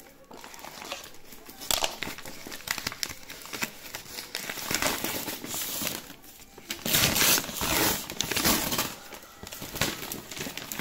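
Crumpled paper gift bag and wrapping paper crinkling and rustling as they are handled and pulled open, loudest about seven seconds in.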